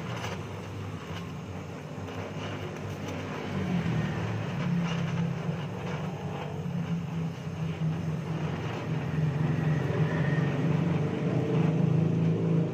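Stick (arc) welding on a car's exhaust muffler pipe: the arc crackles and sizzles over a steady low hum, which grows louder about four seconds in.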